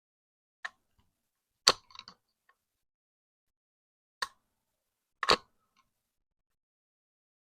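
Four short, sharp clicks and knocks from hand work on an AR-15 lower receiver and its tools: a faint one under a second in, the loudest at under two seconds with a short rattle after it, then two more a second apart later on.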